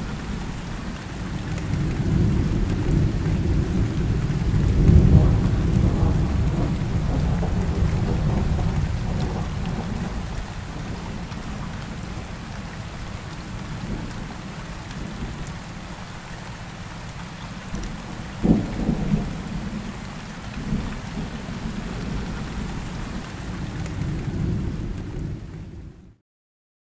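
Rainstorm recording: steady rain with low rolling thunder, swelling loudest about five seconds in, a sharper thunderclap about two-thirds of the way in, and cutting off suddenly just before the end.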